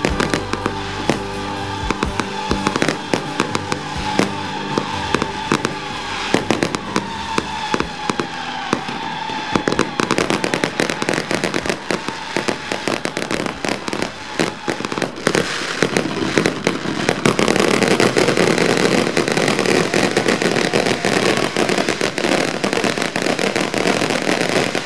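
Fireworks going off in rapid bangs and crackles over music. From about seventeen seconds in, the bursts merge into a louder, dense, continuous crackle.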